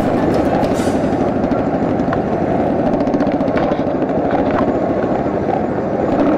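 Motorcycle engine running steadily at riding speed, heard from a camera on the bike, with road and wind noise.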